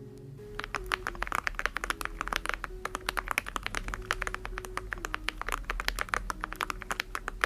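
Steady, fast typing on a mechanical keyboard with ceramic keycaps over tactile switches: a dense run of keystrokes, a mix of clacky and thocky, beginning about half a second in.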